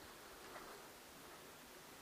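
Near silence: a faint steady hiss, with one faint tick about a quarter of the way in.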